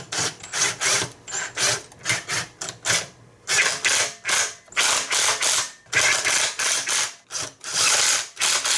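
Cordless driver spinning a socket in many short bursts, about three a second with a brief pause about three seconds in, running in the 10 mm bolts that hold the jack shaft plate on the engine.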